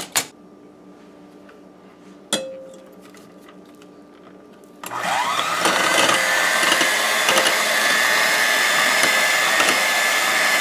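Electric hand mixer switched on about halfway through: its motor whine rises quickly in pitch, then runs steadily as the beaters whip eggs in a glass bowl. Before it starts there is a single knock with a short ring.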